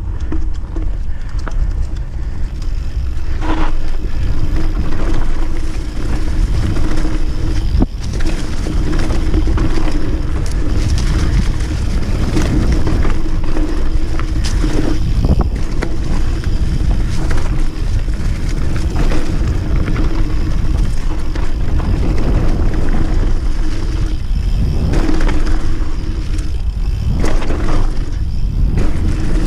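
Mountain bike descending a dirt downhill trail: steady wind rumble on the action-camera microphone over tyres rolling on dirt, with frequent knocks and rattles as the bike hits bumps.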